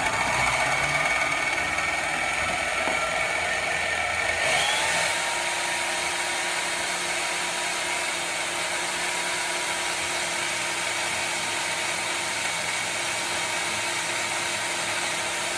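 Harbor Freight portable bandsaw starting up with a rising whine, then running steadily as its blade cuts through 3/16-inch annealed 1095 high-carbon steel; the tone changes about four and a half seconds in.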